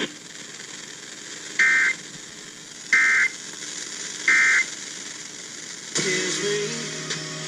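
Weather radio end-of-message signal: three short, identical bursts of EAS/SAME digital data tones, about 1.4 seconds apart, over radio static, closing a severe thunderstorm warning broadcast. About six seconds in, other radio audio with a wavering low tone starts.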